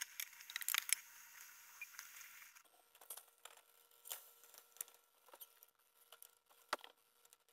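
Faint rustling and scattered light clicks of hands handling small kitchen things, with a sharper click near the end.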